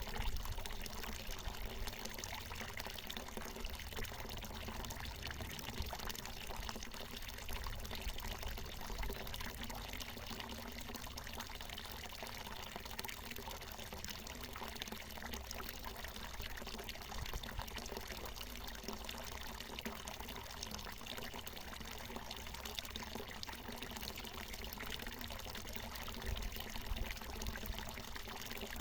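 Water from a natural mountain spring pouring and splashing steadily.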